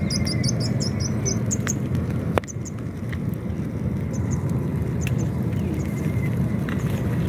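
Wood fire crackling with scattered sharp pops under fish grilling on stick skewers, one louder crack about two and a half seconds in, over a steady low rumble; a few short high bird chirps.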